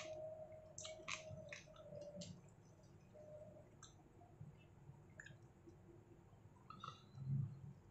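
Fingers scooping fried rice on a paper wrapper, eating by hand: faint scattered clicks and rustles, most of them in the first couple of seconds, with a soft low thump about seven seconds in.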